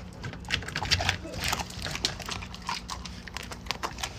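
A Doberman making a quick run of short, excited noises as it reaches up with its mouth open at raw food held above its head.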